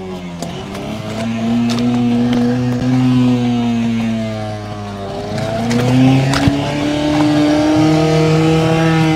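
Outboard motor on a small fibreglass boat running and churning the water, its pitch sagging and climbing again twice as the throttle is eased and opened.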